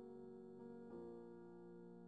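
Quiet background music of sustained keyboard chords, moving to a new chord about a second in.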